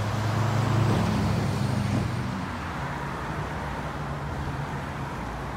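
A motor vehicle's engine, a low steady hum that is loudest about a second in and fades after about two seconds, over general street traffic noise.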